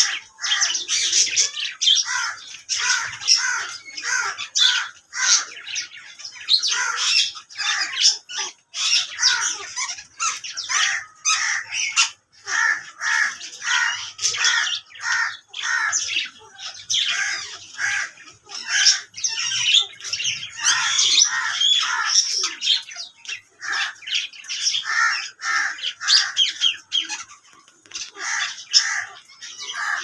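Alexandrine parakeets calling nonstop: a dense run of short, rapid squawks and chirps with hardly a pause.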